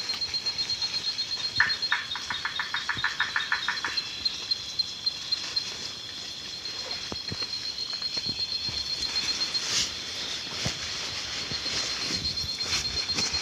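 Night insects chirping: a steady, high, rapidly pulsed cricket trill, joined early on for about two seconds by a second, lower and faster trill. Scattered light knocks and rustles in the second half.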